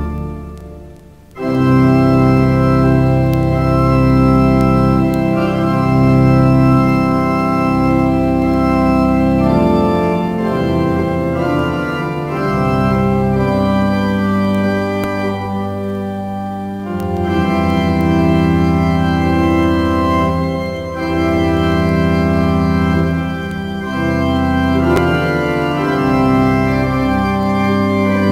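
Eton College Chapel pipe organ playing loud, sustained chords over a deep bass. A held chord dies away into a brief break about a second in, then the playing resumes loudly.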